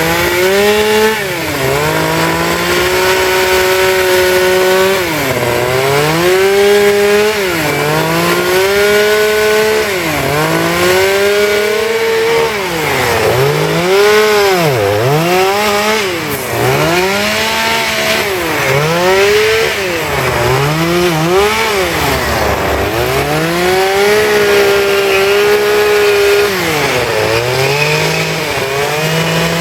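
Petrol chainsaw cutting wood. The engine pitch keeps dipping and recovering every second or two as the chain bites into the wood and the throttle is worked.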